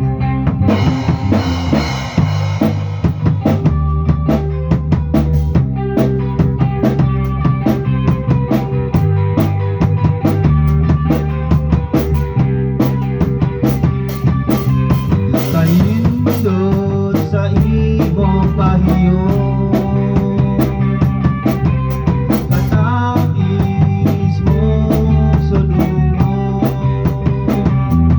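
Live band playing an instrumental passage: drum kit keeping a steady beat with bass drum and snare, over bass and guitar.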